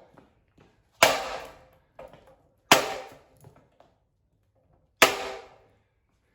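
Three hard blows to a ceiling fan being smashed apart, about a second, nearly three seconds and five seconds in, each with a short metallic ring that dies away.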